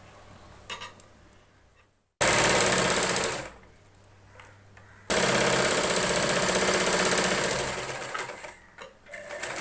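Singer sewing machine stitching a folded hem on a fabric pocket, in two runs: a short burst starting abruptly about two seconds in, then a longer run from about five seconds in that dies away near the end.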